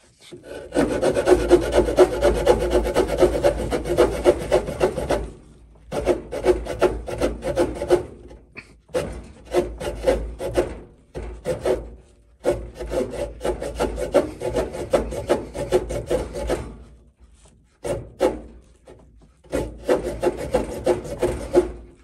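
Small pocketknife saw blade cutting through an old wooden tool handle with fast back-and-forth strokes. The sawing comes in several bouts with short pauses between them.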